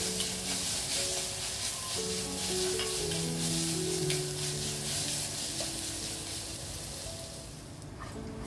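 Sliced shallots, dried red chillies and curry leaves sizzling in hot oil in a clay pot and being stirred with a metal ladle: the tempering for a dal gravy. The sizzle stops near the end. Background music with a slow melody plays underneath.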